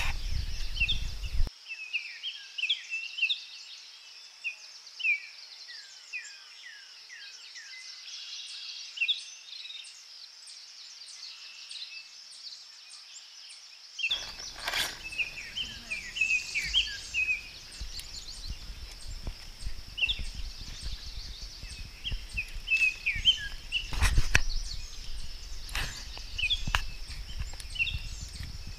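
Birds chirping and singing in quick, repeated downward-sliding notes over a steady high-pitched drone. A few sharp knocks come in the second half.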